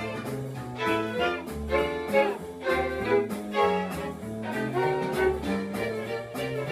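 String quartet of two violins and two violas playing a swing jazz arrangement together: bowed melody notes over a walking lower line.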